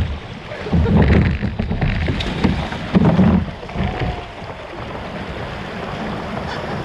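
Kayak moving down a shallow river: paddle strokes and moving water, with loud irregular surges about a second and three seconds in, then a steadier wash of water noise.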